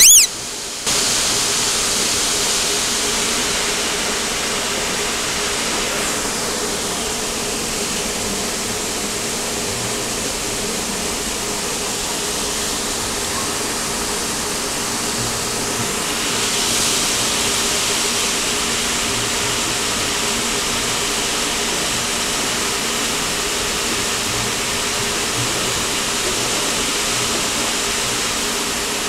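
Saltwater aquarium water circulation running, a steady rushing hiss with a faint low hum, typical of the tank's pump and filter flow. A brief chirp and a short drop in level come right at the start.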